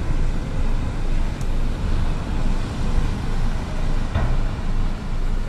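Low, steady rumble of churning, surging water as an Amels superyacht's hull slides sideways off the launch ways into the river during a side launch, with a single knock about four seconds in.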